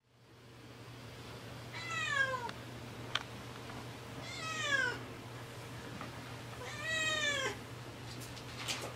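A wary, formerly stray tabby cat meowing three times, each meow drawn out for under a second and falling in pitch at the end. Two small clicks come between the meows.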